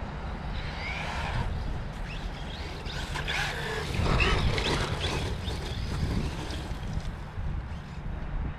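Small electric RC truck's motor whining as it drives, the pitch rising and falling with the throttle, loudest a few seconds in. A steady rumble of wind on the microphone runs under it.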